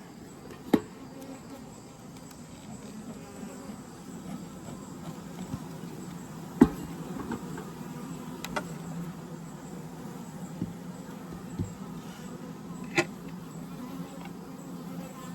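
Honeybees from an open hive buzzing steadily in a low hum, with a few sharp clicks and knocks scattered through it, the loudest about six and a half seconds in.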